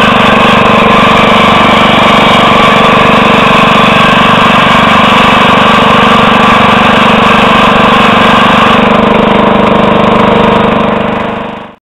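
Bolens 1050 garden tractor's engine running steadily and loud from the driver's seat while its front-mounted snowblower throws snow. The sound fades out near the end.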